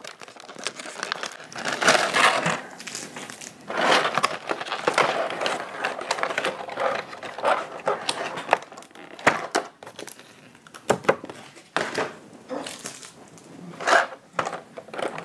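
Clear plastic packaging and a cardboard insert tray crinkling and rustling as they are handled, in irregular bursts with a few sharp clicks.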